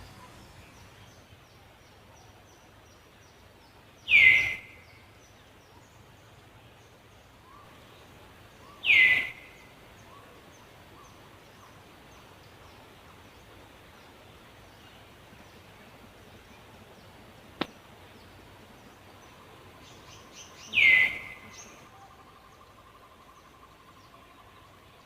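Three loud, short animal calls several seconds apart, each sliding quickly down in pitch, over faint, high, continuous chirping.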